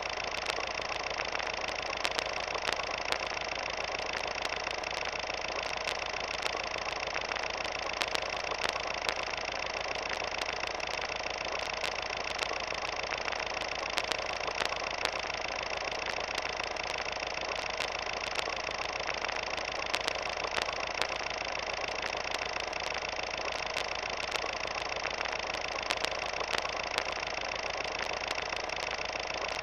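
A steady mechanical drone of several even tones, with frequent scattered clicks and crackles over it.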